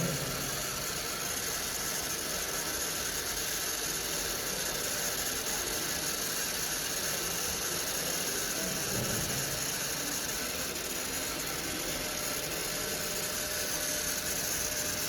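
Small DC motor on an Arduino prototype running steadily, a stand-in for a vehicle engine, with an even mechanical rattle.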